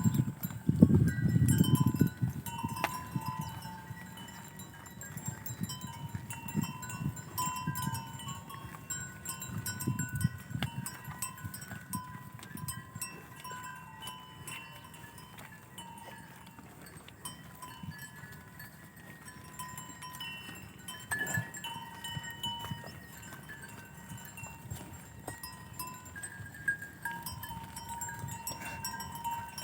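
Bells ringing on and off among a herd of Banni buffalo, with a deep, loud low sound in the first two seconds.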